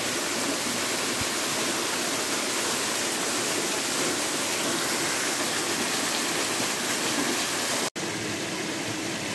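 Small forest waterfall, water dropping 8–10 m down a rock face, making a steady rushing. There is a brief break just before the end, then the rushing resumes a little quieter.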